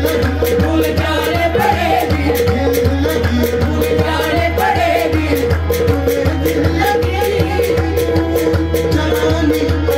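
A man sings a slow, ornamented melody over sustained harmonium chords, with a steady percussion beat throughout.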